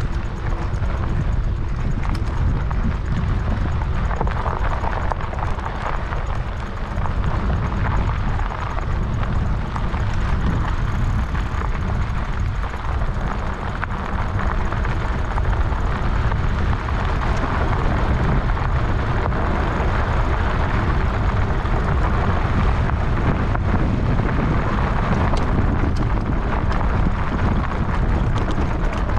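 Steady low wind rumble on the microphone and tyre noise from a bicycle ridden along a rough road, with a few faint knocks and rattles.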